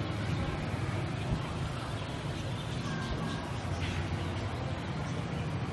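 Steady low rumble of outdoor background noise with a fainter hiss above it, and a brief faint call about four seconds in.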